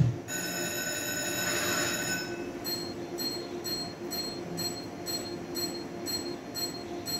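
Video slot machine playing its electronic win sounds: a sustained chiming tone for about two seconds, then a ringing chime repeating nearly three times a second while the winning lines are shown and the win total counts up.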